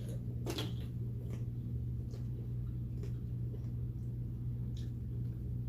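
Someone chewing food, with a few faint irregular mouth clicks and smacks, over a steady low hum.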